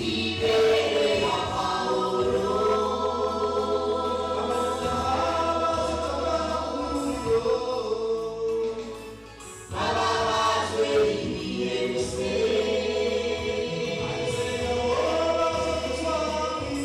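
Choir singing gospel music over a sustained low bass, in long held notes with a short break about ten seconds in.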